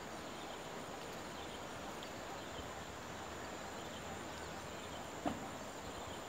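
Steady outdoor background noise with faint insects, and one brief short sound about five seconds in.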